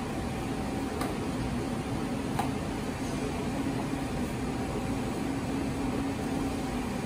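Steady hum of kitchen machinery, with two faint clicks about one and two and a half seconds in.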